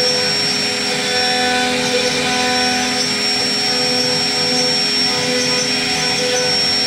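CNC router spindle running at speed and cutting wood, with a steady high whine. Beneath it a lower hum comes and goes as the carving head moves across the panel.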